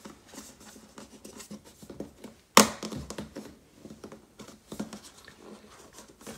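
Hands handling a white cardboard laptop box and its paperboard insert tray, with soft rustling, scraping and small clicks. A single sharp knock about two and a half seconds in is the loudest sound.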